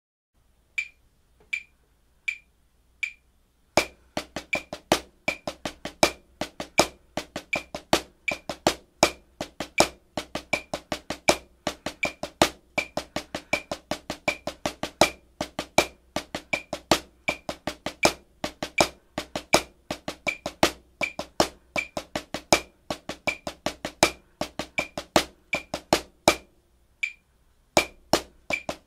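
Snare drum played with sticks at 80 beats per minute: a rudimental solo of accented sixteenth-note patterns with mixed single and double strokes. A steady click keeps the beat. Four clicks count in before the drumming starts about four seconds in, and the drumming stops for about a second near the end before going on.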